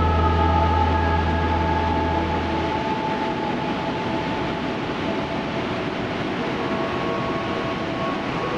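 Ambient music of long held synth-like tones over a steady rushing noise; a deep low drone drops out about three seconds in.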